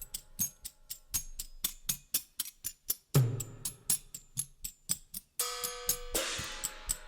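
Background music with a drum-kit beat: fast, even hi-hat ticks, a cymbal crash with a low drum hit about three seconds in, a short held chord, then another crash near the end.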